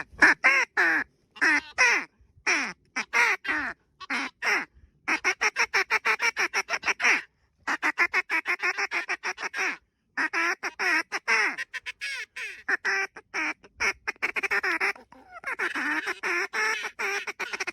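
Hand-blown duck calls played in fast runs of short, quacking notes, about six or seven a second at the quickest, with short pauses between the runs.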